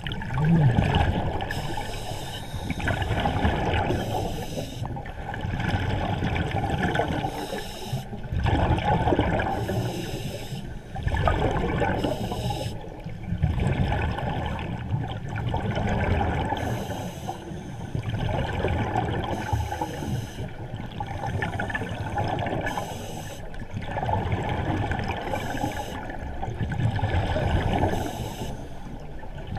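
Scuba regulator breathing underwater: bursts of exhaled bubbles rushing and gurgling, repeating every few seconds in a steady breathing rhythm, heard through a waterproof camera housing.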